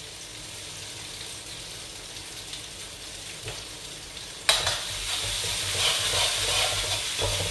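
Sambal tumis paste frying in a steel wok, sizzling quietly at first. About four and a half seconds in, the sizzle suddenly gets much louder and keeps going as the wok is stirred with a metal slotted spoon.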